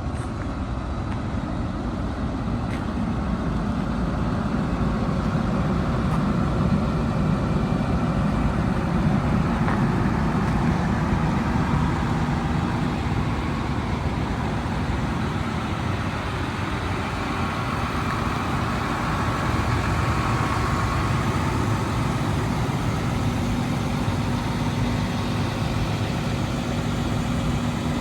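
The Link-Belt 355X4S excavator's 205 hp Isuzu diesel engine running steadily at idle. A steady humming tone joins the rumble near the end.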